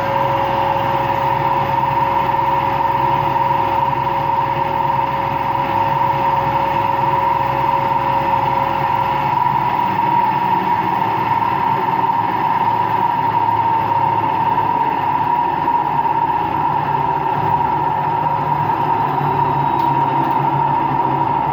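Empty washing machine on its spin cycle, with a loud, steady whine and rumble from worn bearings; the owner thinks both the motor bearing and the drum bearing are bad. A second, lower tone fades out about nine seconds in.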